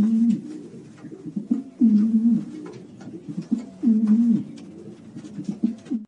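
Pigeon cooing: three low coos about two seconds apart.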